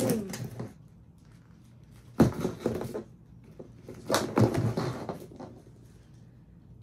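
Hard plastic action-figure parts knocking and clattering as they are rummaged out of a plastic tub, in two bursts about two and four seconds in.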